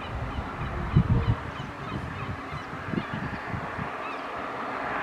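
Birds calling over a steady background noise, with a few louder, short low sounds about a second in and again about three seconds in.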